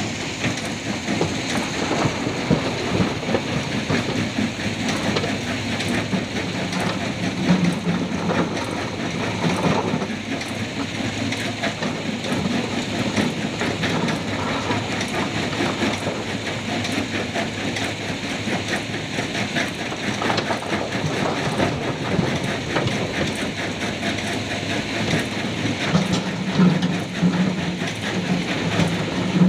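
Hydraulic excavator loading river boulders into a steel dump truck bed: a continuous clatter and knocking of stones over a steady diesel engine drone. The engine note swells twice, about a quarter of the way in and near the end.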